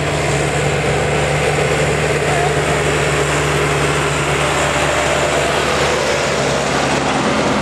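Tractor engines running steadily at a tractor pull, as a tractor passes close by.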